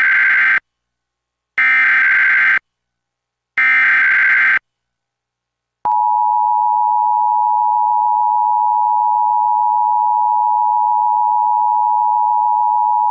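Emergency Alert System tones opening a required monthly test: three one-second bursts of screeching SAME header data, then about a second of silence, then the steady two-tone attention signal (853 and 960 Hz), which starts about six seconds in and holds on.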